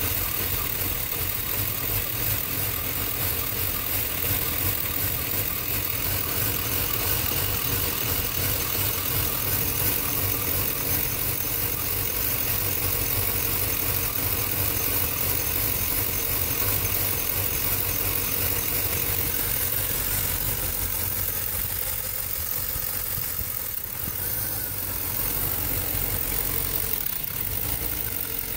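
2003 Chevy Suburban's Vortec V8 idling steadily on a cold start, the condition in which the owner says it runs badly.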